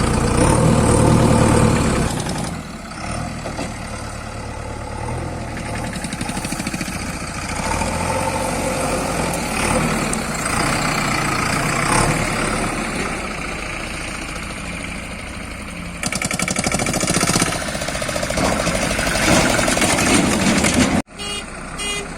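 Diesel engine of a backhoe or tractor running and working, loudest in the first two seconds and then rising and falling. Near the end the sound cuts off abruptly, and short beeps repeat after it.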